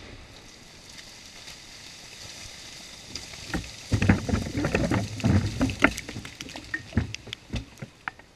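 Mud, water and sticks thrown up by a buried dynamite blast in a beaver dam falling back down. Over a faint hiss, scattered thuds and pattering set in about three and a half seconds in as clumps land, then thin out near the end.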